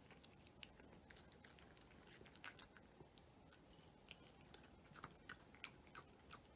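A cat chewing dry kibble: faint, irregular small crunches and clicks, coming thicker and louder in the second half.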